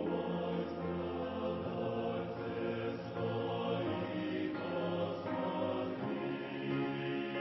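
Choir singing a hymn in long held chords, with the lowest voices moving down about two seconds in.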